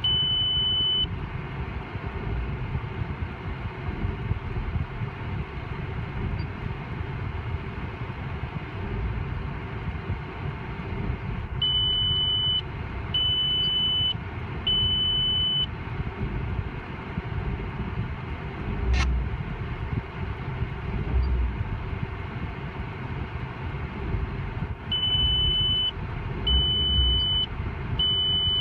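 Diesel car engine idling steadily, heard from inside the cabin. Over it, long high electronic beeps about a second each sound at the start and then in two groups of three, with a single sharp click in between.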